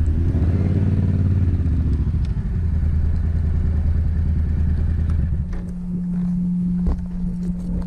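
Motorcycle engine pulling away, its note rising over the first second or so, then running steadily under way, settling onto a single steady note about five seconds in. A few sharp clicks come in the last couple of seconds.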